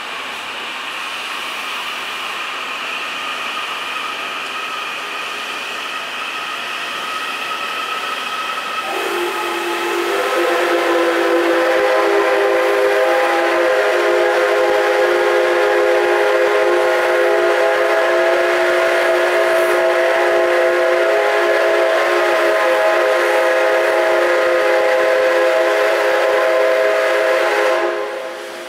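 Steam locomotive C61 20's whistle giving a long farewell blast to a departing train. Higher, fainter whistle tones come first; about nine seconds in it opens into a loud chord of several notes, held steady for nearly twenty seconds before cutting off sharply near the end.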